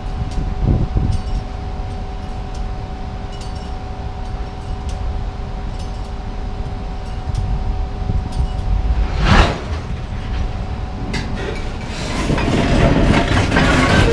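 Railway freight wagons rolling slowly past on the track: a low rumble over a steady hum, with a brief whoosh about nine seconds in, turning into louder clanking and clinking of the moving wagons near the end.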